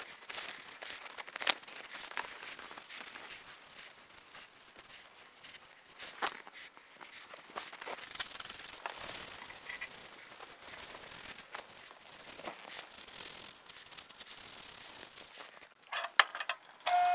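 Towels rubbing and wiping over the grimy base of a DoAll milling machine as it is cleaned, with a few scattered light knocks.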